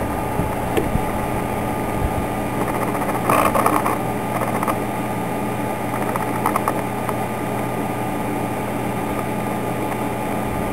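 Laptop optical drive spinning as it reads a Ubuntu live CD to boot, a steady whirring hum with a few brief clicks and rattles about a third of the way in and again just past halfway.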